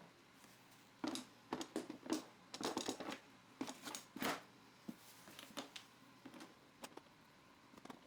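Quick clicks, rattles and scrapes of parts being handled and fitted as the DEWALT DW735 planer's screws, top cover and bolts go back on. They come thick and fast in the first half and thin out after about five seconds.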